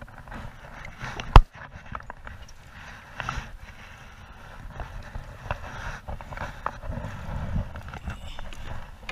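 Knocks and clatter of a landing net and its pole against a plastic fishing kayak as a large fish is netted from the water and lifted aboard, with one sharp, loud knock about a second and a half in and smaller knocks later on.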